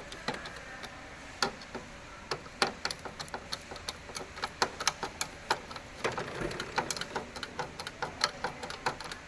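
Hand screwdriver tightening the screws of the white plastic clamps that hold the seeder's handle tube: irregular light clicks and ticks, several a second, with a few louder knocks.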